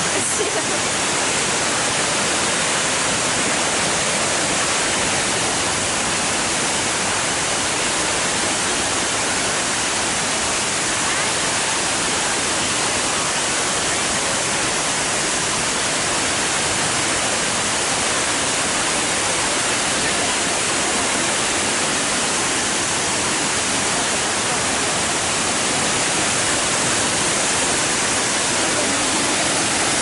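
Shiraito Falls: many thin streams of water spilling down a rock face into a pool, making a steady rush of falling water.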